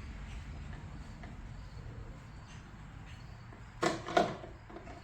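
Two sharp knocks in quick succession about four seconds in, over a faint steady low hum.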